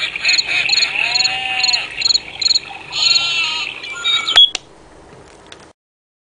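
Nature-sound track of chirping crickets and croaking frogs played by a digital nature-sound clock. It stops a little over four seconds in with two sharp clicks, then only a faint hiss remains before it cuts to silence.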